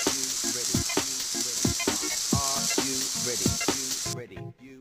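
A pancake frying in a pan, sizzling steadily, with background music over it. The sound cuts out almost completely about four seconds in.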